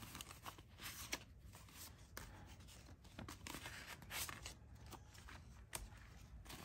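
Paper banknotes rustling faintly as a fanned stack of US bills is handled and leafed through, in short irregular crinkles and brushes.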